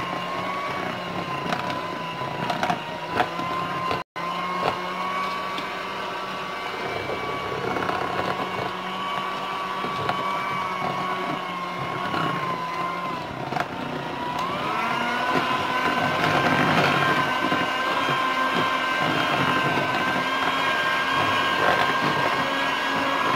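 Philips electric hand mixer running steadily, its twin beaters whisking chocolate génoise batter in a bowl. About fourteen seconds in its whine steps up in pitch and gets a little louder.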